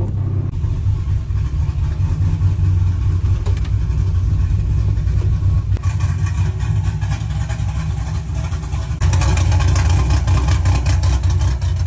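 Cammed V8 truck engine running through its new exhaust with a pulsing, uneven beat. It gets louder and fuller for about two seconds from around nine seconds in, as on a light rev.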